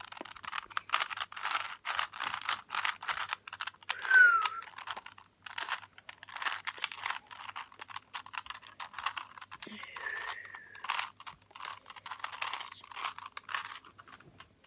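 Plastic Rubik's Cube being turned quickly by hand: a dense run of rapid clicking and clacking as its layers snap round. A short squeak falling in pitch about four seconds in is the loudest moment, with another brief squeaky tone near ten seconds.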